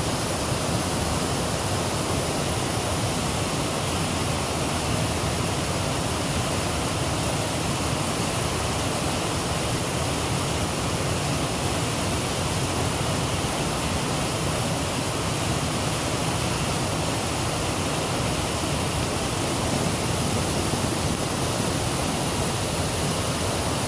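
Rushing creek water: a steady, unbroken rush with no rise or fall.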